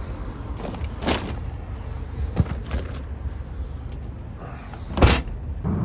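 Shopping bags being loaded into an open car trunk: paper-bag rustling and a few light knocks and clinks, then one loud thump about five seconds in.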